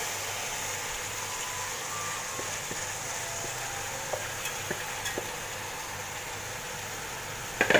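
Beef masala sizzling steadily in an aluminium pot as soaked rice is tipped in, with a few faint ticks in the middle and a sharp knock near the end.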